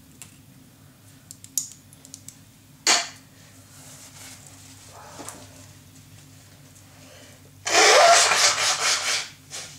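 A person blowing their nose hard for about a second and a half, near the end, after a short sniff about three seconds in.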